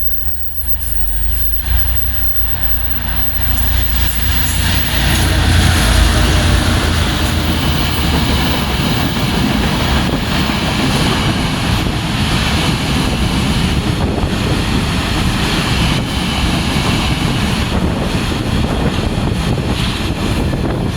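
Taiwan Railways freight train passing close by. A low rumble builds over the first five or six seconds, then the wagons' wheels roll over the rails in a steady, loud rolling noise.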